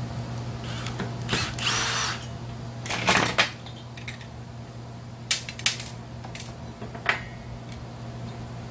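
Cordless drill-driver running in three short bursts, backing screws out of a brush cutter engine, followed by several sharp clicks of metal parts being handled.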